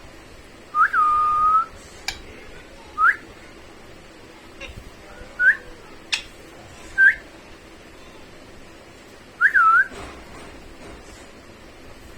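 Pet parrot whistling: five separate whistles, the first a quick rise that drops and holds one steady note for most of a second, the next three short upward flicks, and the last rising and falling twice. Two sharp clicks fall between them, one about two seconds in and one about six seconds in.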